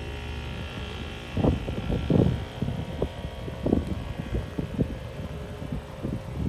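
Wind buffeting the microphone in irregular gusts, starting about a second and a half in, over a steady low droning hum.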